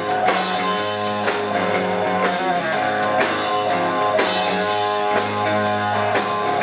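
Rock band playing an instrumental stretch between sung lines: guitar over bass and drums with a steady beat.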